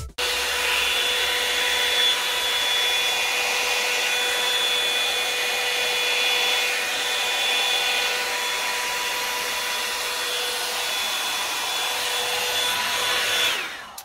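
Revlon One Step hair dryer and volumiser running steadily: a rush of blown air with a high motor whine on top. It cuts in abruptly at the start and is switched off just before the end, its whine falling away as it winds down.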